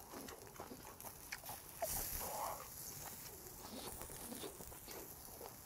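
Chewing of grilled beef small intestine (gopchang) picked up close by a lapel microphone: soft wet smacks and small clicks of the mouth, with a short hiss about two seconds in.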